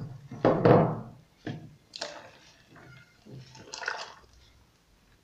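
Blended juice splashing as it is poured and mixed into a plastic pitcher, with knocks of the containers being handled. The loudest splash comes about half a second in, followed by shorter ones and bumps up to about four seconds in.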